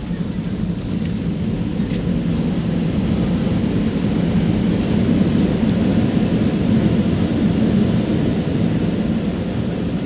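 Airbus A320 jet engines and airframe heard from inside the cabin during the landing roll on the runway: a loud, steady roar that swells toward the middle and eases a little near the end.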